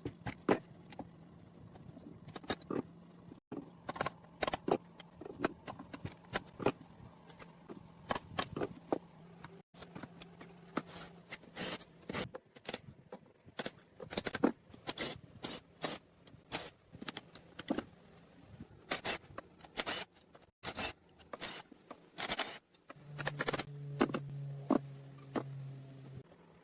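Workshop handling sounds: a quick, irregular run of sharp metallic clicks, taps and scrapes from hand tools and metal engine parts being worked. A low steady hum sits under the first half and comes back briefly near the end.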